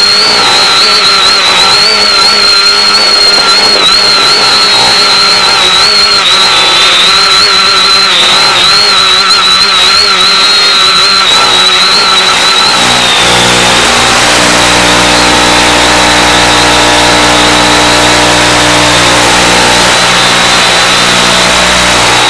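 X550AIOP quadcopter's motors and propellers whining over the analog FPV downlink's audio, under heavy hiss, the pitch wavering as the throttle corrects. About 13 seconds in the whine gives way to a steady buzzing hum under the hiss, as the radio link takes static.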